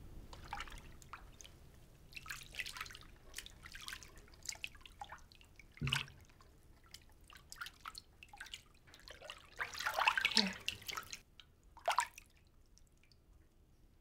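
Bathwater dripping and lightly splashing in a filled bathtub as wet hands move in and out of the water, in irregular small splashes with a few louder ones, the biggest about ten seconds in.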